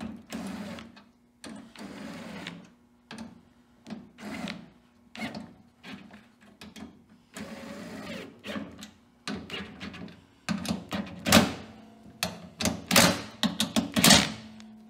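Cordless drill running in short bursts against the metal skin of a VW Caddy tailgate, stopping and starting over a dozen times with a low whine from the motor. The bursts grow louder and sharper in the last few seconds.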